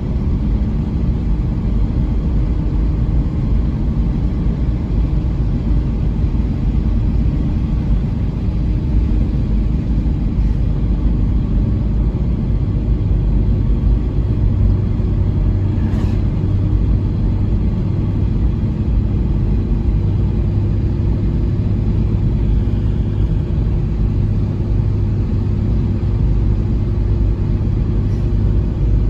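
A motor vehicle's steady engine and road rumble, with a low hum that grows stronger about halfway through and a single brief click.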